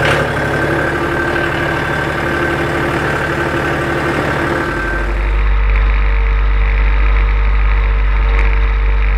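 John Deere 5065E tractor's diesel engine running steadily with no sputter, its clogged in-tank fuel filter now cleaned. About five seconds in the sound changes to a deeper, heavier rumble heard from on the tractor as it works in the field.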